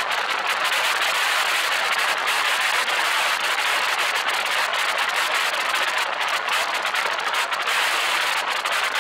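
Steady rush of wind and road noise from a car driving at speed, heard on a camera mounted on the outside of the car.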